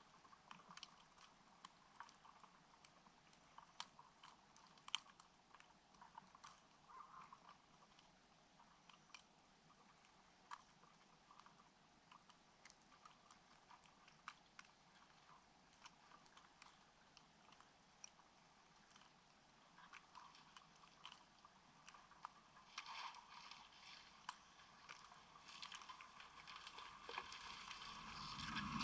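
Near silence with faint, scattered clicks and ticks, two of them a little louder about four and five seconds in; a soft hiss builds up over the last several seconds.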